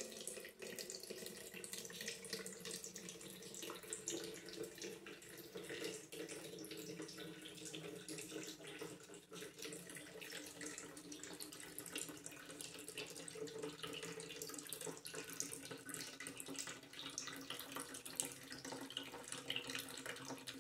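Water running steadily out of a small pipe spout in the wall and splashing into a plastic cup and basin, with many small splashes and drips. It is leak water coming through the wall from the neighbour's pipe.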